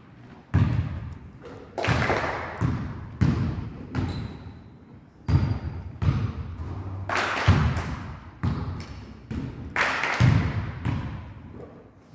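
Basketballs thudding on a hardwood gym floor and shots banging off the backboard and rim, a hit every second or so, each ringing out in a long echo through the large hall.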